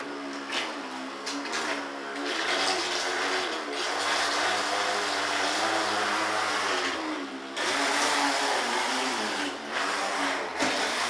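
Electric RC speedboat's motor running hard on a 7.2 V battery: a wavering whine over a rushing hiss that starts suddenly, with the pitch shifting as the throttle changes and a few brief let-offs in the second half.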